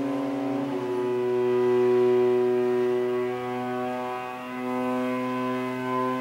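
Bowed cello holding long sustained notes that overlap and shift in pitch a few times, swelling about two seconds in, over a steady low hum.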